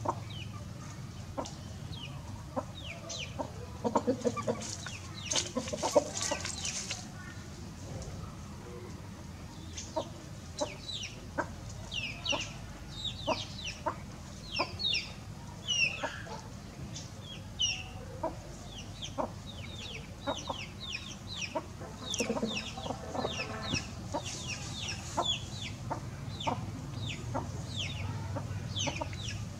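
Chickens clucking while foraging, with many short, high, falling chirps through much of it.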